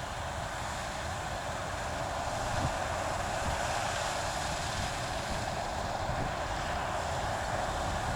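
Harvest machinery running steadily, with wind on the microphone.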